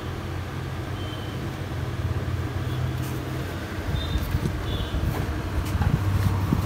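A motor engine running nearby, a steady low drone of traffic or machinery that grows a little louder toward the end, with a few short high chirps over it.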